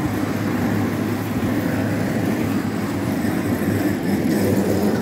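Steady low rumbling background noise of a busy indoor market hall, with no clear single event.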